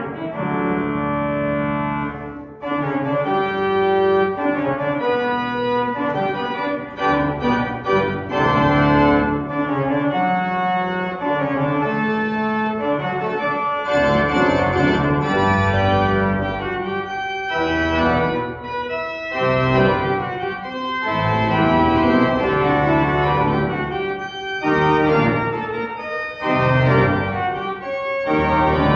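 Organ playing full, sustained chords that change every second or so, with a few brief breaks between phrases.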